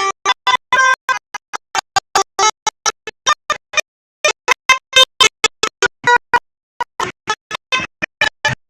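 A fast staccato melody of short, synthesizer-like notes at about four or five a second, each cut off sharply into dead silence, with two brief pauses.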